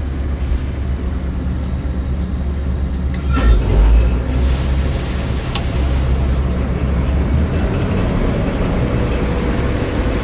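Gleaner combine running, heard from inside its cab: a steady low engine rumble, with a heavier clunk about three seconds in and a sharp click a couple of seconds later.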